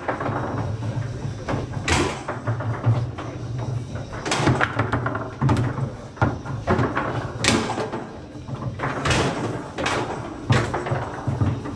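Foosball table in play: sharp knocks of the ball being struck by the players and hitting the table, about one every second or two, over a steady low hum.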